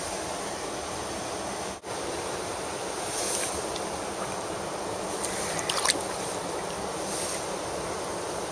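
Mountain stream water rushing steadily, with a few short, sharp clicks or splashes standing out between about five and six seconds in.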